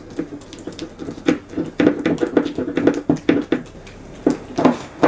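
Wire whisk beating stiff cream cheese in a glass bowl: quick, uneven clicks and scrapes of the metal whisk against the glass, with a short pause near the end.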